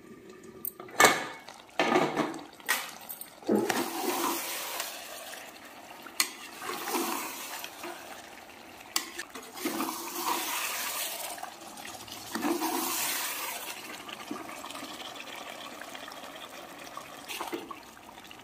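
A spatula stirring and scraping chicken masala in an aluminium pressure cooker pot over high heat. There are sharp knocks against the pot, mostly in the first few seconds, and repeated swells of sizzling as the wet masala starts to catch on the bottom.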